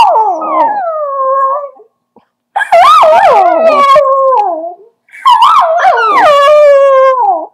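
Ten-month-old dachshund howling: a howl that began just before trails off, then two more long howls follow. Each wavers in pitch and slides down at the end.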